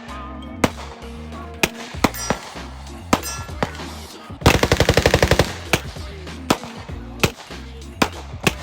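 Gunfire: single shots spaced about a second apart, with a rapid burst of roughly fifteen shots lasting about a second near the middle, the loudest part. Background music plays underneath.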